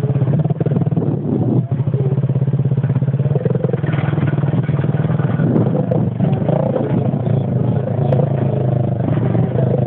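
Small motorcycle engine running steadily under way.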